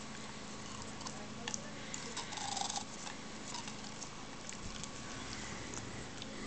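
A rat terrier licking and biting at a watermelon popsicle: scattered small wet licking clicks, with a louder slurp about two and a half seconds in, over a steady low hum.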